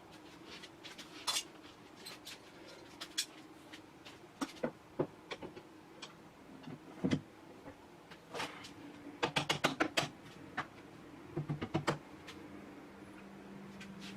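Irregular light knocks and clicks, with quick runs of taps about nine and again about eleven and a half seconds in, over a faint steady hum.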